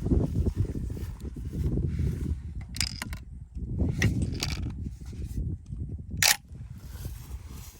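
A few sharp mechanical clicks from the Benelli M4 shotgun being handled and its action worked, over a steady low rumble.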